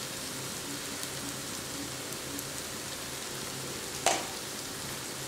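Sliced onions frying in oil in a clay pot: a steady, soft sizzle with faint crackles. A single short knock comes about four seconds in, as turmeric powder goes in.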